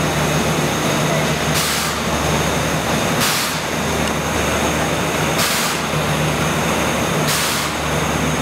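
Fish-processing plant machinery running with a steady low hum, beside a steaming cooking tank. Short hisses come about every two seconds, four times in all.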